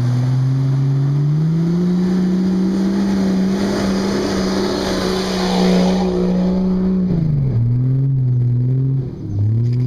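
Nissan off-road truck's engine revving hard under load, held at high revs for several seconds, then dropping sharply about seven seconds in and picking up again near the end.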